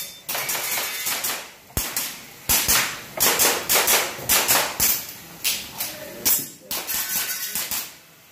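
Airsoft gas pistol firing a rapid string of about a dozen sharp shots, a quarter to half a second apart with a few short pauses, as in a practical-shooting stage.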